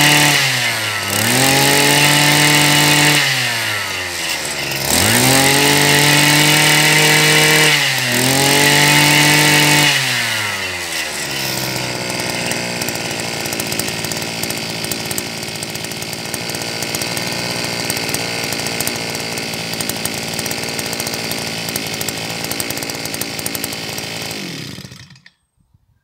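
Mitsubishi TL52 two-stroke engine on a Cooper's garden tiller, revved up and let back down about four times over the first ten seconds, then idling steadily until it cuts out about 25 seconds in.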